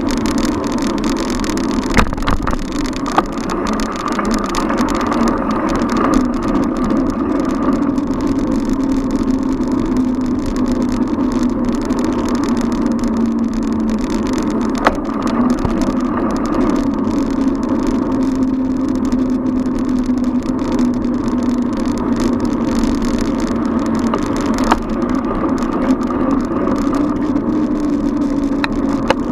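Steady street noise heard from a camera on a moving bicycle, with passing car traffic and a wavering hum that slowly sinks and rises again. A few sharp clicks or knocks stand out, about two seconds in, near the middle and near the end.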